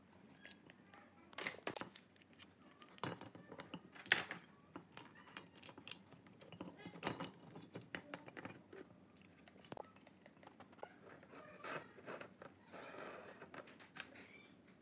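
Metal parts of a two-horsepower air compressor's pump clinking and knocking as its pistons, connecting rods and crankshaft are fitted into the crankcase and handled on a steel bench. There are sharp knocks about 1.5, 3 and 4 seconds in, with lighter clicks and scrapes between.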